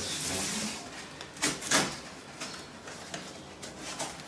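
Cardboard box being handled and its flaps folded over: a scraping rustle at first, then two loud cardboard scuffs about a second and a half in, with lighter rustles after.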